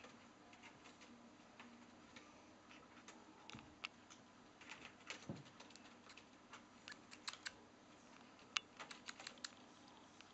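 Faint, scattered light clicks and crackles of British Shorthair kittens clambering in and around a wicker basket, coming thicker in the second half, with one sharper click near the end.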